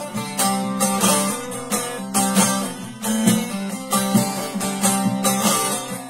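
Bağlama (long-necked Turkish saz) played solo: a quick plucked and strummed melody, several strokes a second, over a steady low drone note.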